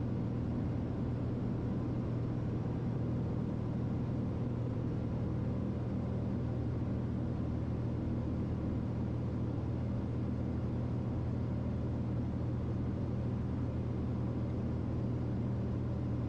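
Steady cabin drone of a Piper Malibu's single piston engine and propeller in a descent, with landing gear and spoilers extended. It holds an even low hum with no change in pitch or level.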